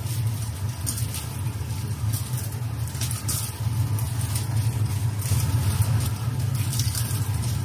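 Salted fish frying in a pan on an induction hob, under a steady low machine hum. Chopsticks tap lightly against the pan now and then as the pieces are turned.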